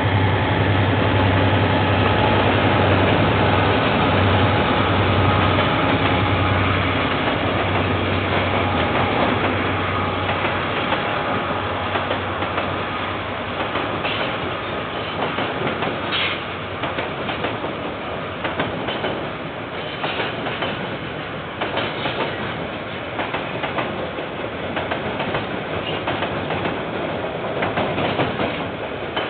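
KiwiRail diesel-electric freight locomotive passing with a steady engine drone that fades over the first nine seconds or so. Container wagons then roll by, their wheels clattering on the track with repeated sharp clicks.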